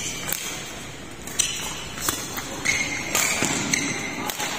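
Badminton rally: several sharp racket hits on the shuttlecock, the loudest about a second and a half in, with players' shoes squeaking and stepping on the court.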